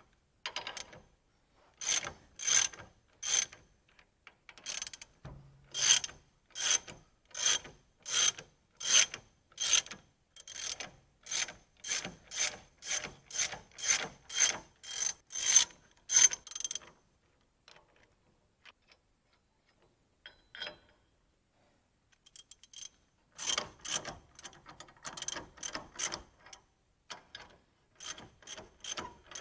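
Hand ratchet wrench clicking stroke after stroke, about one and a half strokes a second, as a bolt is turned while working the rear hub assembly free. The strokes stop about halfway through and start again near the end.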